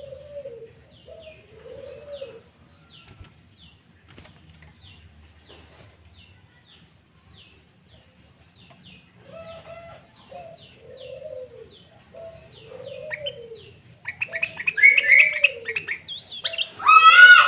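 Sooty-headed bulbul singing loud, varied, rapid phrases from about fourteen seconds in. Beneath it a low, arched call repeats about once a second throughout, with faint short high chirps.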